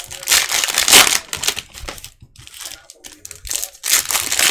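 Cellophane wrapper of a basketball card pack being torn open and crinkled by hand: loud crackling in the first second or so, quieter handling in the middle, then another burst of crinkling near the end.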